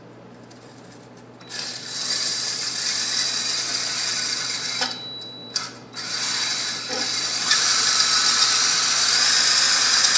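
Drill spinning a fine stone hone inside a tractor's 3-point hitch lift cylinder, the stones scraping the bore to clean up rust rather than cut a cross-hatch. It starts about a second and a half in, drops off briefly around five seconds, then runs again, louder near the end.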